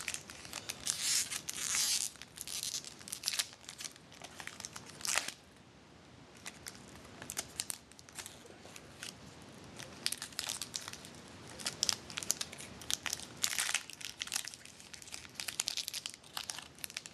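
A trading card pack's wrapper being torn open and crinkled by hand. It comes as irregular crackles in bunches, with quieter handling between them.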